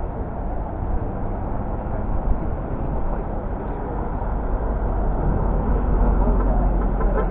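Convoy traffic of cars and trucks driving past: a steady rumble of engines and road noise, growing louder about five seconds in.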